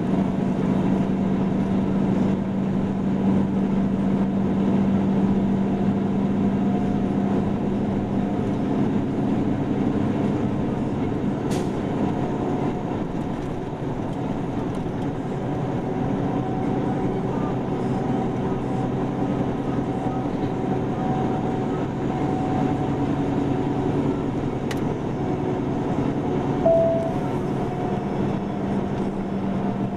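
Steady engine and road drone of a vehicle driving, heard from inside the cab, with a low hum held throughout. A short, higher tone sounds once near the end.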